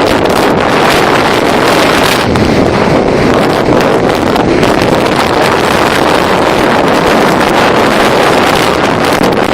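Storm wind buffeting the microphone: a loud, steady rushing noise.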